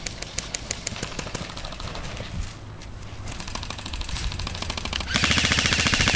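Airsoft rifle firing on full auto: a loud burst of rapid, evenly spaced shots about a second long near the end. Earlier come fainter strings of rapid shots, in the first second and again past the middle.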